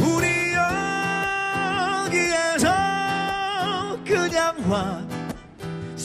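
A man singing a slow, mellow song live into a microphone over light instrumental backing, holding two long notes in the middle.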